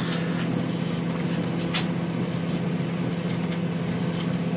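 Microwave oven running: a steady low hum with fan noise, with a few faint ticks over it.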